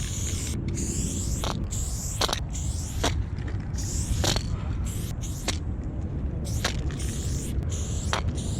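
Aerosol spray paint can hissing in short bursts that start and stop, with sharp clicks scattered between them, over a steady low rumble.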